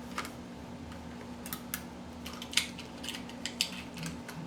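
About a dozen irregular light clicks and taps of a plastic toy vending machine being pressed and handled while its prize is stuck and won't come out, over a faint steady hum.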